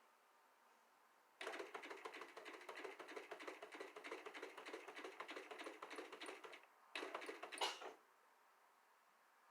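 Consew 226R-1 industrial walking-foot sewing machine stitching: a fast, even clatter for about five seconds, then a pause and a second, shorter run of about a second.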